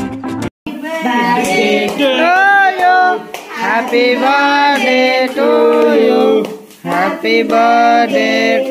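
A song with a high singing voice, its notes gliding and held. It cuts to silence for a moment about half a second in, then carries on.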